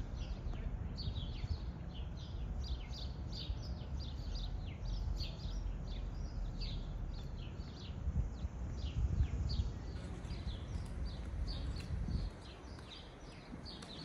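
Many small songbirds chirping busily, short quick downward-sweeping notes overlapping throughout. Under them is a low rumble that drops away suddenly near the end.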